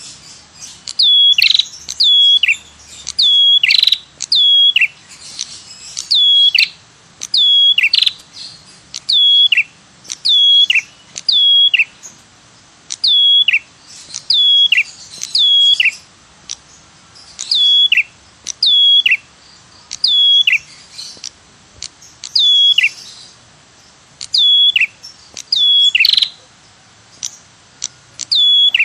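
Recorded lure call of an ashy tailorbird (prenjak kepala merah). A sharp 'tirr' note repeats over and over, each one dropping steeply in pitch. The notes come singly or in quick pairs, about one a second, with short gaps.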